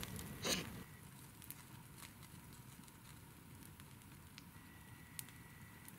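Wood campfire burning, crackling faintly with a few scattered sharp pops.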